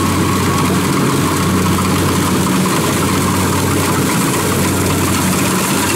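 Kubota DC-70 combine harvester's diesel engine running steadily as the machine cuts rice in a wet paddy, a constant low hum with mechanical clatter over it.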